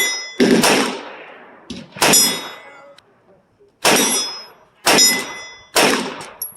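A string of about six gunshots fired at uneven intervals, each sharp report followed by a metallic ringing tail.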